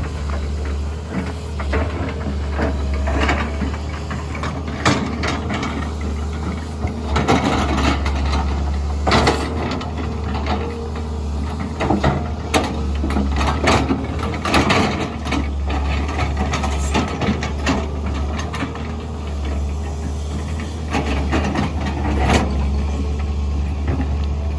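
SANY SY205C hydraulic excavator's diesel engine running steadily under working load, with frequent sharp knocks and clanks from the working machine, clustered in several bursts.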